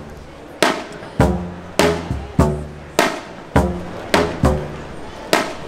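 Busker's drum kit made of coloured plastic pipes, played in a steady rhythm: a struck hit about every 0.6 s, each giving a low pitched note that rings briefly, with a quicker double hit about three-quarters of the way through.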